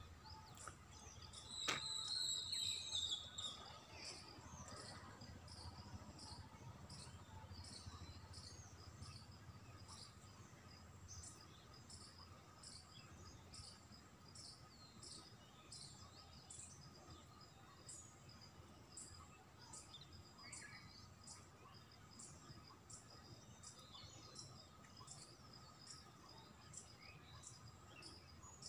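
Faint insects chirping in a steady, regular pulse, a little under two chirps a second, over a thin steady high tone. About two seconds in, a bird gives one louder, arched whistled call.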